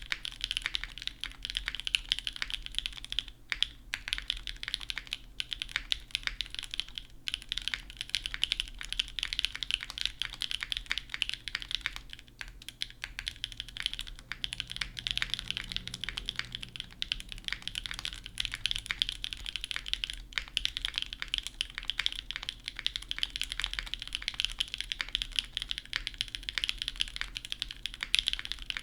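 Fast, continuous typing on a mechanical keyboard with stock, factory-lubed Gateron CM long-pole switches on an aluminium leafspring plate and GMK keycaps, giving a clacky sound, with brief pauses a few times.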